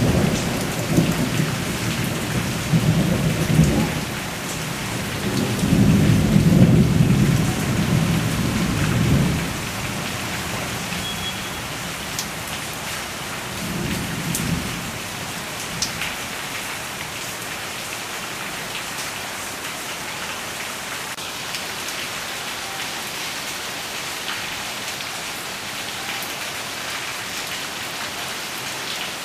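Steady rain falling on garden foliage, a continuous hiss. Low thunder rumbles through the first ten seconds or so, loudest about six to nine seconds in, with a shorter rumble around fourteen seconds, then the rain goes on alone.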